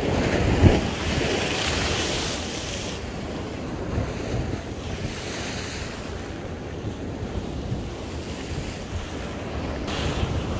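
Sea waves washing onto the shore, with wind buffeting the microphone; the wash is loudest for the first few seconds, then settles.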